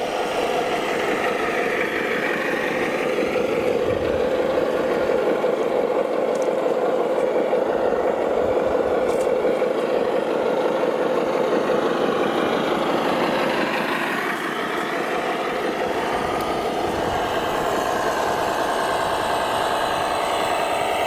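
Radio-controlled MAZ-537 model heavy truck running, its engine sound steady and idling-like, with the pitch shifting and wavering more in the last several seconds as it works.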